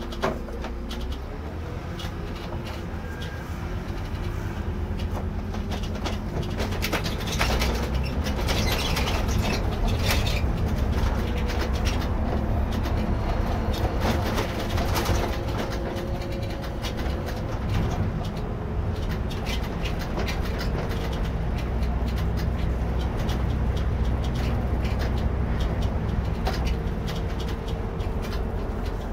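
Iveco Cursor diesel engine of an Irisbus Recreo II coach running, heard from the driver's cab. Its tones shift in pitch, and clicks and rattles run throughout. It grows louder about seven seconds in.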